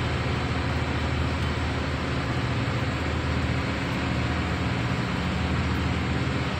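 Steady drone of a ship's running diesel generators and engine-room machinery: an even low hum with a hiss over it, unchanging throughout.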